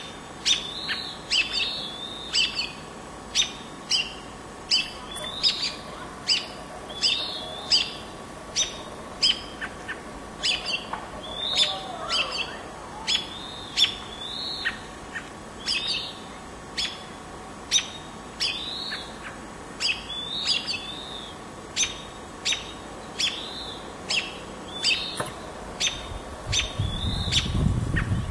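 A small bird calling over and over, a sharp chirp that drops in pitch, about three calls every two seconds. This is typical of a songbird giving alarm calls at a red-tailed hawk perched near its nest. A low rumble comes in near the end.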